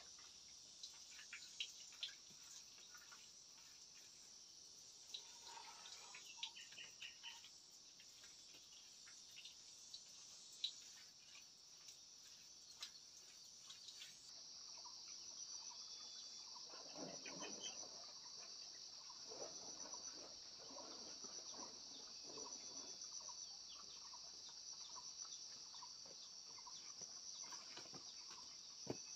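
Faint, steady high-pitched chorus of crickets trilling, which grows louder and more plainly pulsing about halfway through. Scattered light clicks and knocks sound over it.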